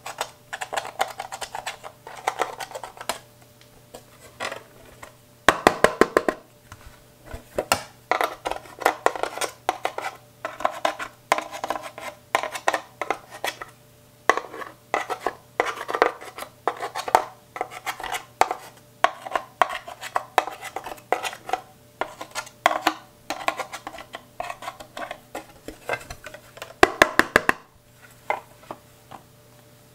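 A metal tool scraping and digging pressed eyeshadow out of the pans of a plastic palette, in quick runs of sharp scratching clicks. The loudest flurries come about six seconds in and near the end.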